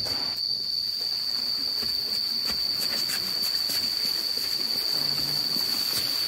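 A steady, high-pitched insect drone, one unbroken tone, with scattered short rustles and scrapes of a woven plastic rice sack being dragged and handled.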